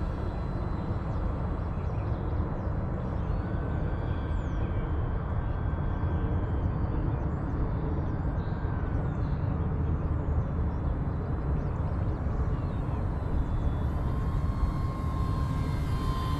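Electric RC model Cessna 182's brushless motor and propeller whining in flight, a faint pitched hum that drifts in pitch and fades in and out as the plane moves about. A steady low rumble runs underneath and is the loudest part.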